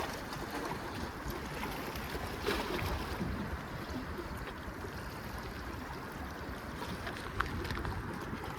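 Steady low rush of wind and water at the water's edge, with a couple of faint clicks.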